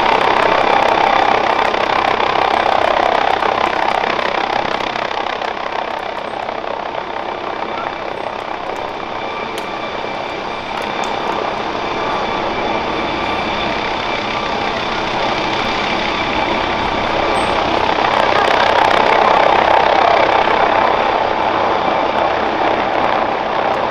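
MD Helicopters MD900 Explorer, a twin-turbine NOTAR helicopter with no tail rotor, hovering overhead: steady rotor and turbine noise, easing off a little in the middle and swelling again near the end.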